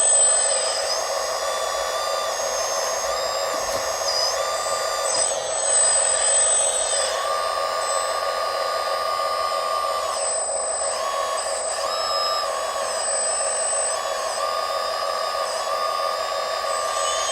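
Small electric motors of radio-controlled excavators, dump trucks and a loader whining steadily, the higher pitches stepping up and down every second or two as the machines work.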